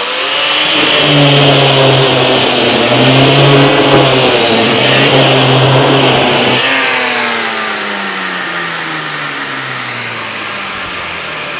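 Metabo LF 724 S paint remover running under load, its carbide-bladed drum milling a rubber coating off a board at 0.3 mm depth, with its connected dust-extractor vacuum running. About seven seconds in the tool is switched off and its motor winds down in falling pitch while the extractor keeps running.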